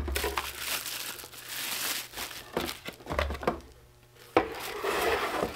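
Thin foam and plastic packaging wrap crinkling as it is handled and pulled off the units, in irregular rustling spurts. It goes almost quiet about four seconds in, then a sharp click and more crinkling.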